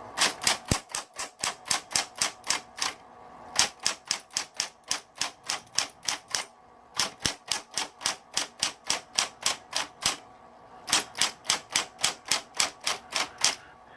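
Smith Corona Coronet XL electric typewriter being typed on: quick runs of sharp keystroke strikes, about five a second, broken by short pauses. The motor's faint steady hum runs underneath.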